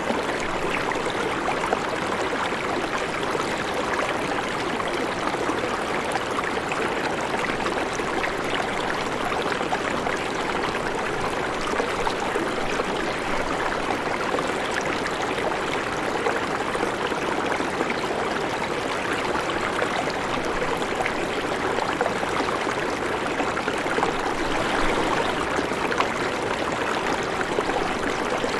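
Shallow river flowing, a steady rushing of water, with light knife taps on a wooden cutting board as radishes and a red onion are sliced.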